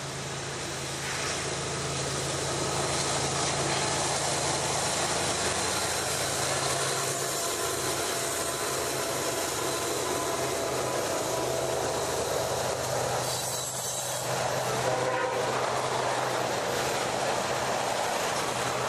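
Two GE diesel locomotives of a BNSF coal train passing, their engines giving a steady low hum for the first several seconds, then the long string of coal cars rolling by with a continuous rumble and rattle of wheels on rail.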